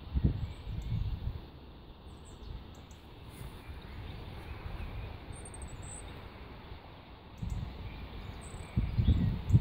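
Small birds chirping in short, high calls every few seconds, over low rumbling bursts on the microphone around the first second and again in the last two seconds.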